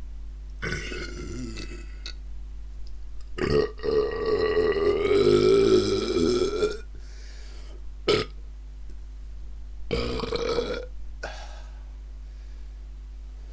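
A person belching on command, three times: a short burp about a second in, a long drawn-out burp from about three and a half seconds to nearly seven that is the loudest, and another short burp at about ten seconds. Brief sharp sounds come just before the long burp and again near eight seconds.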